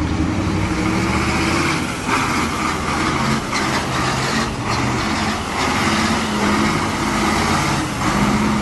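KamAZ dump truck's diesel engine running hard and revving as the truck drifts in circles on ice, its engine note rising and falling.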